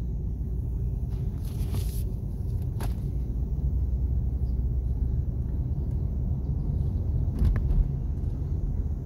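Steady low rumble of a car driving, heard inside the cabin: engine and tyre noise on the road. A short hiss comes about a second and a half in, a click about three seconds in, and a brief louder knock near the end.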